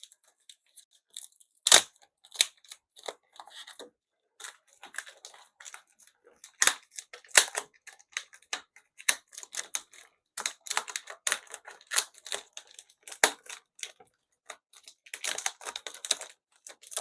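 Packing tape being peeled and plastic packaging handled: a run of irregular crackles, rips and small clicks, with a couple of sharper snaps and a denser burst of crackling near the end.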